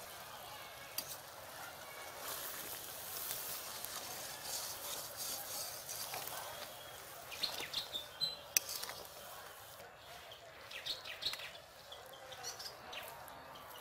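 Squash curry simmering and sizzling in a black iron wok over a wood fire, with a wooden spatula stirring and scraping against the pan in short clusters of clicks about halfway through and again near the end.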